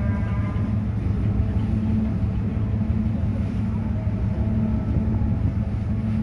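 Steady low drone of ship diesel engines running.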